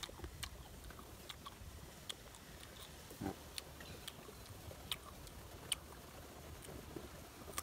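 Faint mouth clicks and lip smacks from chewing crisp green ambarella (June plum): scattered sharp ticks about every half second, with a slightly heavier smack about three seconds in.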